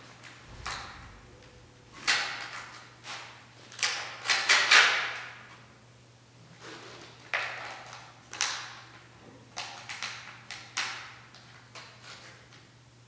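A pointed hand tool scraping and scratching on a large sheet of paper in a series of short strokes, each starting sharply and fading within about half a second, the busiest stretch a few seconds in. A faint steady hum runs underneath.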